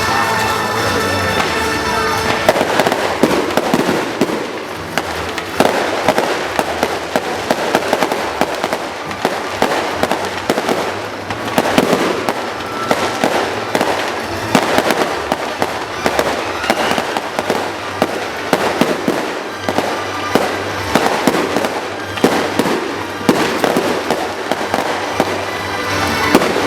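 Fireworks display: a dense, continuous run of bangs and crackling bursts that sets in about two seconds in, with music playing underneath.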